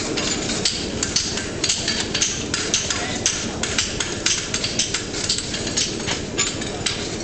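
Several farriers' hammers striking horseshoes on anvils at once: sharp metallic strikes, irregular and overlapping, several a second, over a steady background din.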